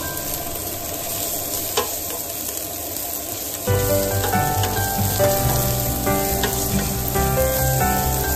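Strips of ginger sizzling and frying in oil in a stainless steel pot as a spatula stirs them, with a single sharp click of the spatula against the pot about two seconds in. About halfway through, background music comes in loudly over the sizzling.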